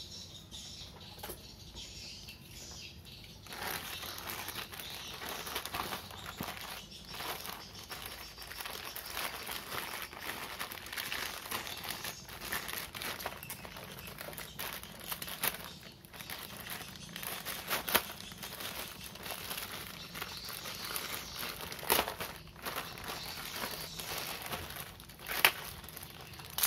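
Plastic courier mailer bag crinkling and rustling as it is handled and cut open with a utility knife. A few sharp snaps stand out, the loudest near the end; the first few seconds are quieter.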